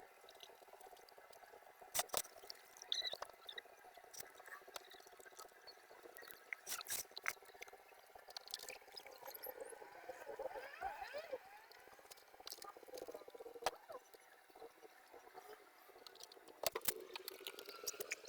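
Water being poured and splashed by hand while cleaning a front-loading washing machine's filter, with scattered sharp clicks and knocks from handling the parts.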